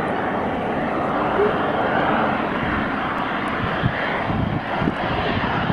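Boeing 737 airliner on final approach with its landing gear down, its jet engines giving a steady rushing noise as it comes closer.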